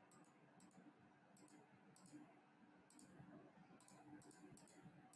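Near silence with faint, short, high clicks scattered irregularly, about a dozen of them.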